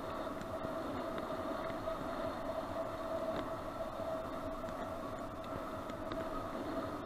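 Steady noise of a bicycle rolling along a dirt path, picked up by a helmet-mounted action camera, with a constant hum running underneath and a few faint ticks.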